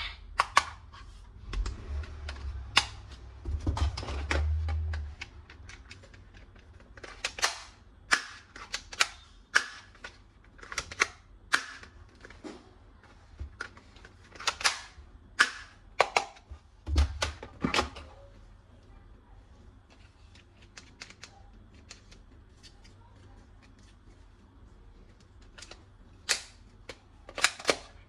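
Sharp plastic clicks and snaps from toy guns being worked, coming irregularly and often in quick pairs, with a pause of several seconds past the middle. A few dull bumps of handling sound near the start.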